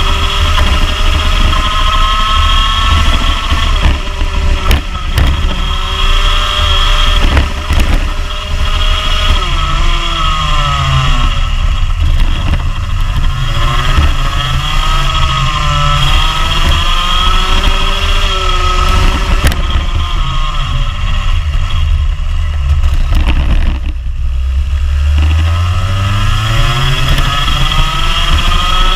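Rotax Junior Max 125cc single-cylinder two-stroke kart engine at racing speed, heard from onboard. Its pitch climbs along the straights and falls under braking for corners several times, with the deepest drop near the end before it revs back up.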